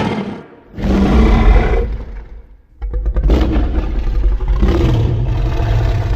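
Kaiju roar sound effects for a Godzilla-style monster. One roar fades out at the start, another runs from about a second in for about a second and a half, and a third starts about three seconds in and keeps going, long and rumbling with a deep low end.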